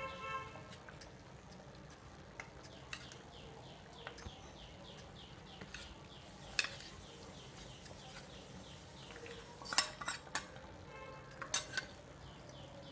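A steel spoon scraping and tapping against a small stainless steel bowl as sambar powder paste is emptied into a pressure cooker. There are sharper clinks about six and a half seconds in and again around ten and eleven and a half seconds.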